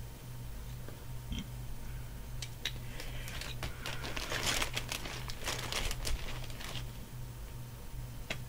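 Hands rummaging among loose Lego pieces and their packaging: a few sharp little plastic clicks, then several seconds of crinkling rustle, with a couple more clicks near the end.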